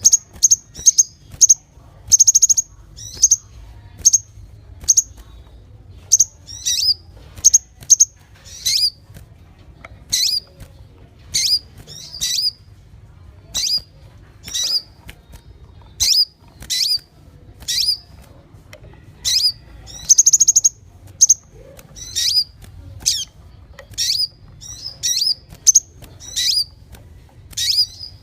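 Recorded call of a small songbird, the 'konin' of Indonesian bird-keeping, played as a lure: short, sharp, high chirps repeating about once or twice a second, with a longer trilled note a couple of seconds in and again about twenty seconds in. A faint low hum lies under the calls.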